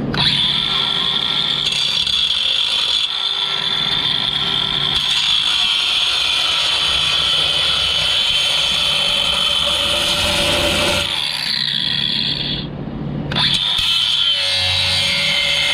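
DeWalt 20V cordless angle grinder with a thin cut-off disc running and cutting into steel, a steady high whine with grinding noise, broken by a brief stop late on before it cuts again. The disc is grooving out a crack in a wood stove's steel plate ahead of welding.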